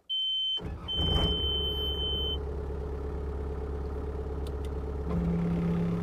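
An engine starts about half a second in and runs steadily, while a high electronic warning beep sounds over the first couple of seconds with a brief break. A low steady tone joins the engine sound near the end.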